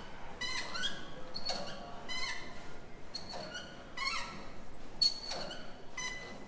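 Cable machine pulleys squeaking as the cable runs back and forth under load: short high squeaks at uneven intervals, about one or two a second.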